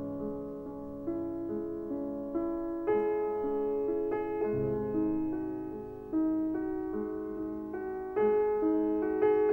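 Slow solo piano music, with notes and chords struck about every half second, each one fading before the next.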